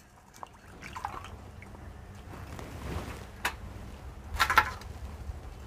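Hands washing an eggplant in a small steel bowl of water: faint splashing and dripping as the vegetable is rubbed and turned, with a sharp tick about three and a half seconds in and a louder burst of splashing near four and a half seconds.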